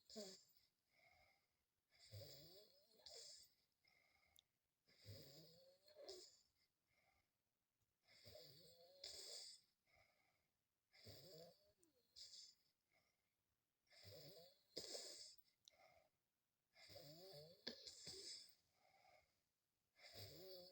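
A sleeping boy snoring faintly and regularly, with a rattling snore on each breath about every three seconds.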